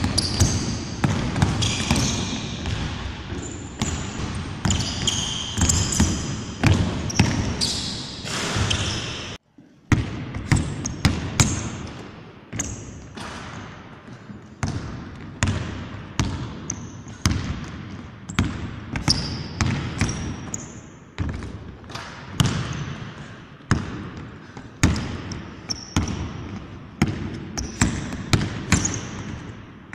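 A basketball being dribbled on a hardwood court, repeated bounces ringing out in a large, echoing empty sports hall. The bouncing breaks off briefly about nine and a half seconds in, then carries on.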